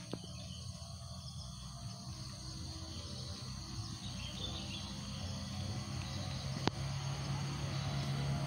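Outdoor ambience with faint insects and birds, under a low steady drone that grows louder throughout, and one sharp click about two-thirds of the way through.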